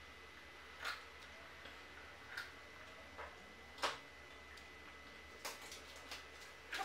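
A few light, scattered clicks and taps, the loudest about four seconds in, from small packaging being handled and opened over a plastic blender jar.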